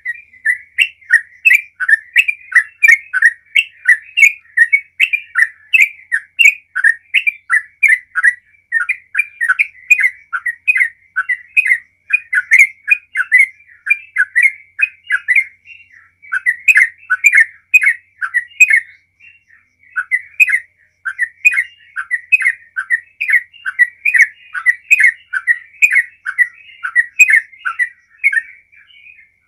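Yellow-vented bulbul singing a long, unbroken run of quick notes, about three a second, with two brief pauses a little past the middle.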